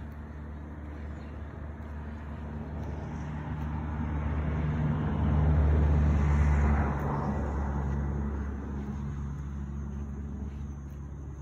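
A motor vehicle passing by: a low engine hum that builds, is loudest about six seconds in, then fades away.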